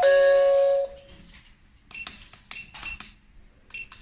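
Two-note ding-dong prompt chime from a queue-calling display, falling from a higher note to a lower one and ending about a second in. A few short beeping clicks from keypad buttons follow.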